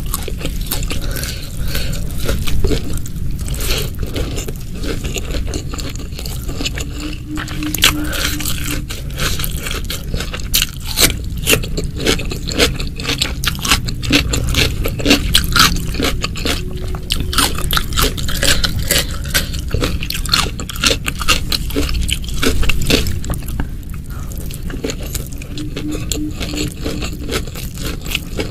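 Close-miked mouth sounds of eating: steady chewing and crunching of crisp food, with many small crackling clicks.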